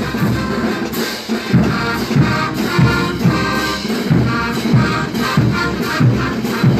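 Mexican banda brass band playing: horns in harmony over a steady tuba and drum beat of about two beats a second.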